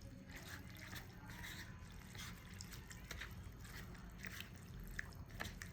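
Faint, scattered small clicks and light taps of utensils and plastic takeout containers being handled, with no one speaking.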